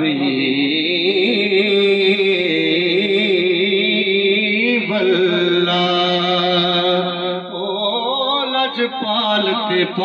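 A man chanting durood (salutation on the Prophet Muhammad) into a microphone, drawing out long wavering notes without breaks between words.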